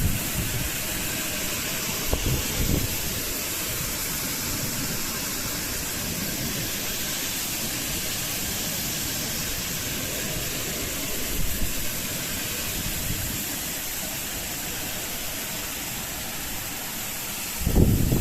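Steady rushing hiss of a strong storm's wind and rain, with brief louder low gusts buffeting the microphone about two seconds in, around eleven seconds, and just before the end.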